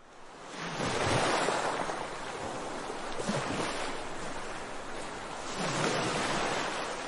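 Ocean surf: a steady wash of breaking waves that fades in at the start and swells about a second in and again about six seconds in.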